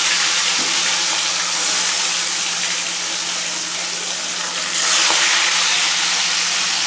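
Mahseer (mahashol) fish pieces sizzling loudly as they fry in hot oil in a kadai, the sizzle swelling about five seconds in. A faint steady low hum sits under it.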